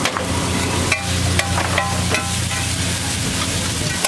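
Metal spatula striking and scraping on a large iron griddle (tawa), a handful of sharp, ringing clinks about one to two seconds in, over steady frying hiss and a low steady hum.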